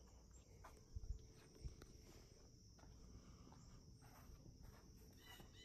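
Near silence outdoors: a few faint footstep and handling thumps about a second in, over a faint steady high-pitched hum.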